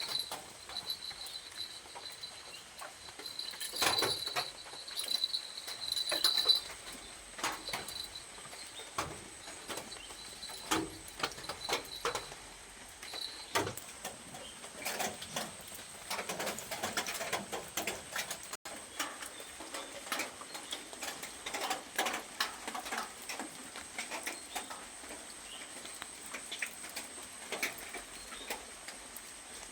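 Irregular light clicks and taps, with a faint steady high whine over the first six seconds or so.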